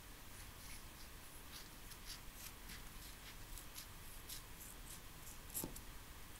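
Scissors cutting through a sheet of paper pattern: a run of faint, crisp snips. A soft knock about five and a half seconds in.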